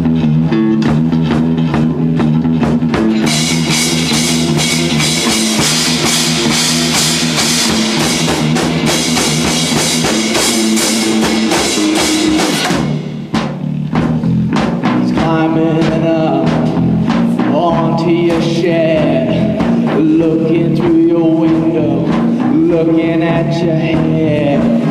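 A grunge-punk band playing a song's instrumental opening live, with a drum kit prominent. Cymbals crash over the first half, the music dips briefly about halfway through, then the band comes back in with a bending melodic line over the drums.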